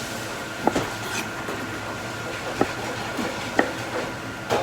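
Restaurant kitchen working noise: a steady hum of equipment with a faint high whine, broken by four sharp clinks of pans and utensils.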